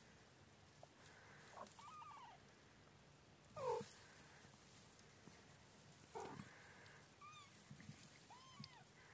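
Newborn kittens giving faint, short, high mews every second or two. The loudest is a falling cry a little before halfway.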